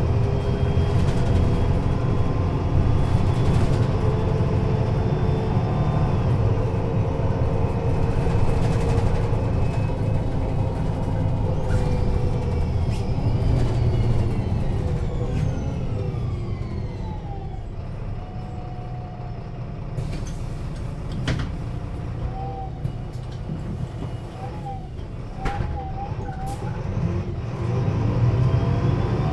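MAN NL 223 city bus heard from inside the cabin: its diesel engine and Voith automatic gearbox run under way, then a gearbox whine falls in pitch as the bus slows to a stop about halfway through. It idles more quietly with a few knocks, and near the end the engine picks up again as it pulls away.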